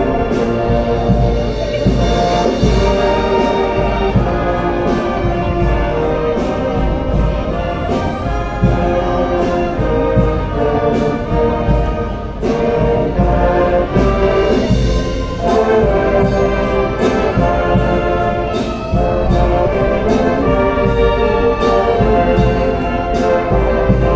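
Live brass band playing a piece, brass carrying sustained chords over a steady percussion beat.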